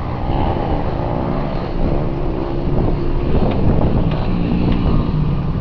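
Engine and road rumble of a slowly moving vehicle heard from inside the cab, with wind buffeting the microphone at the open window.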